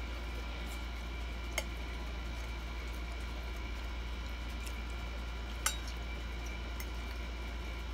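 A few sharp clicks of an eating utensil against a dish, two louder ones about a second and a half in and just before six seconds, over a steady low hum.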